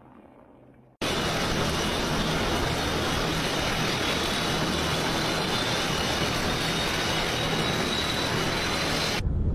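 Tupolev Tu-95 bomber's contra-rotating turboprop engines running loud and steady, with a faint high whine slowly rising in pitch. The sound starts abruptly about a second in and cuts off shortly before the end.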